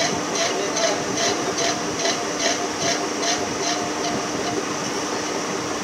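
Large metal lathe running, its cutting tool scraping the turning workpiece in a rhythmic hiss about two and a half times a second over a steady machine hum. The scraping stops about four seconds in.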